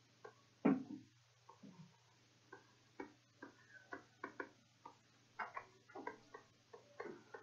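Faint, irregular taps and clicks of a stylus on a pen tablet as letters are handwritten, over a steady low electrical hum.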